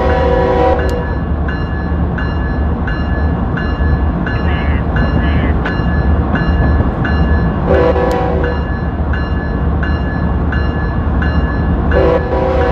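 Diesel locomotive sound of a model train: a steady low engine rumble with a bell ringing about three times a second. The horn sounds at the start, cutting off about a second in, blows again for about a second past the middle, and sounds briefly near the end as the train nears a grade crossing.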